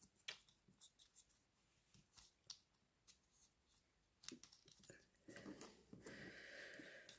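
Faint scattered clicks and taps of small plastic parts as a coupling is worked into a model railway van, with a faint rustle of handling near the end.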